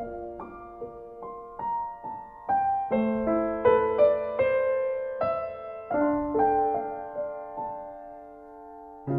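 Background piano music playing a slow melody, with single notes struck about every half second to a second and left to ring.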